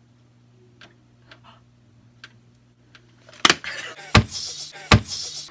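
A few faint ticks. Then, about three and a half seconds in, a sudden burst of loud breathy laughter broken by three sharp thumps.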